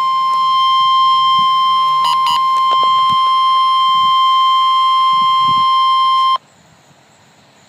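Emergency Alert System attention signal: a single steady high tone, loud, sounding for about six seconds and then cutting off abruptly. It signals that a severe thunderstorm warning message is about to be read.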